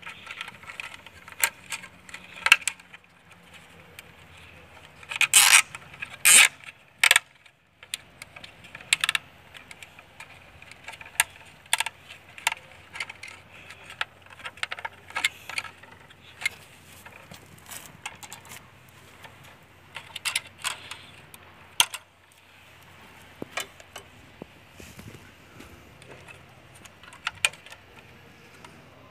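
Irregular clicks, taps and scrapes of hand tools and fiber cable being handled, with two louder clattering bursts about five and six seconds in.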